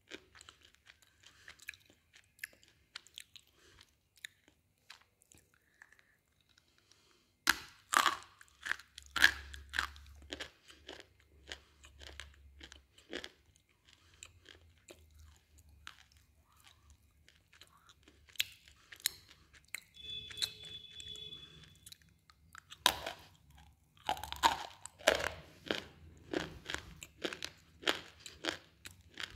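Close-up biting and chewing of hard slate pencil pieces: sharp crisp crunches and snaps, then grinding chews. It is sparse with small clicks at first; loud bites come about seven seconds in and again after about twenty-three seconds.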